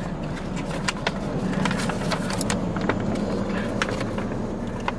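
Paper crackling and rustling as a letter is drawn from its envelope and unfolded: an irregular run of sharp crinkles over a steady low hum inside the car.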